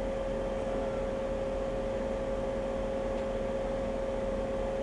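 Steady hiss with a constant thin whine: electrical background noise in the inspection camera's recording, with no sound from an event.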